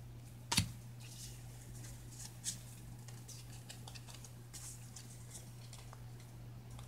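Faint rustling and light clicks of trading cards being handled, with a sharper click about half a second in, over a steady low hum.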